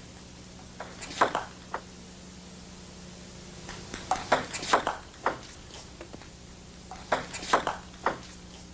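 Table tennis ball hit by bats and bouncing on the table: three short flurries of sharp clicks, the first about a second in, the next near the middle and the last near the end.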